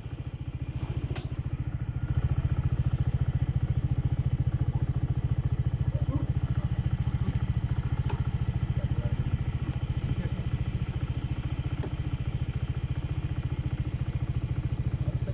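Motor scooter engine idling steadily close by, its level stepping up about two seconds in.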